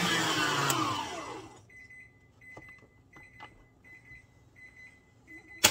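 Electric mixer beating chocolate buttercream frosting, switched off about a second in, its whine falling in pitch as it winds down. An oven timer then beeps with short high beeps, about two a second, signalling the cakes are done. A sharp knock comes near the end.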